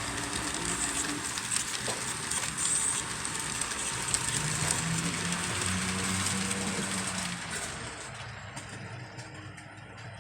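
HO scale model train running on its track: a steady electric-motor whine and wheel rumble with a low hum, fading away about eight seconds in.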